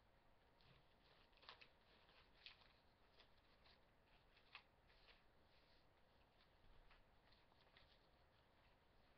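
Near silence, with faint rustles and clicks of binder pages being handled, a few of them slightly louder.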